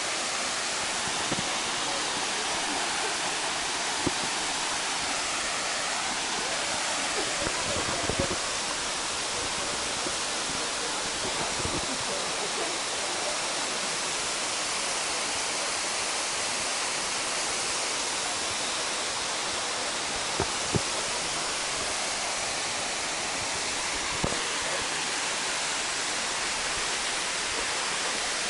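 Steady rushing hiss of Wangi Falls pouring into its plunge pool, with a few brief knocks now and then.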